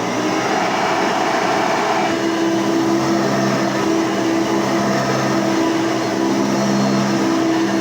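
Hoover Elite 200 upright vacuum (model U4467, 6-amp motor) running steadily, a loud whir with a steady hum under it.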